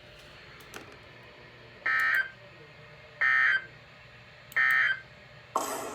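Emergency Alert System end-of-message signal: three short buzzy data bursts of SAME tones, about a second and a half apart, marking the close of a severe thunderstorm warning, over a faint radio hiss. A burst of noise starts near the end.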